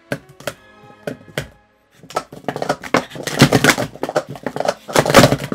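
Plastic sport-stacking cups being rapidly stacked and unstacked on a stack mat: a few light taps at first, then from about two seconds in a fast, dense clatter of plastic cups knocking together. The cups are a worn-in set that the stacker finds catches badly.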